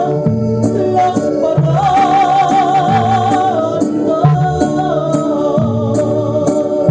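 Mexican song sung by a woman, holding long notes with wide vibrato over a steady rhythmic band accompaniment.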